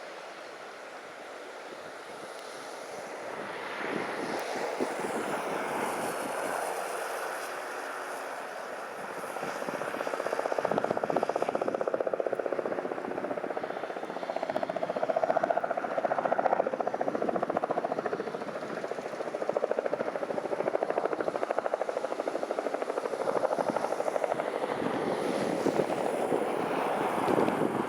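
Floodwater from the Virgin River rushing in a steady roar over the submerged trail. It swells about four seconds in and again about ten seconds in.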